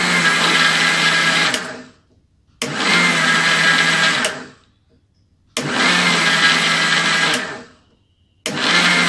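Small electric mixer grinder run in pulses of about two seconds, three times, with a fourth starting near the end. Each pulse starts abruptly with a steady motor hum over the rushing of powder in the jar, then winds down. It is grinding sugar, milk powder and cocoa powder together by the start-stop method so the sugar grinds fine.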